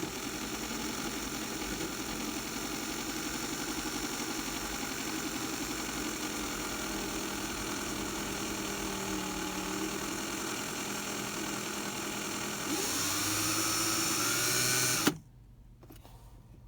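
Electric drill running steadily as it bores into the back of a wooden shift knob. About 13 seconds in it gets louder and rises in pitch, then stops suddenly.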